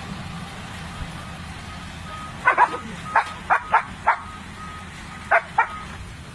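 A dog barks eight times: six quick barks, then two more a second later. Faint repeated high beeps, like an excavator's travel alarm, sound between them over a steady background noise.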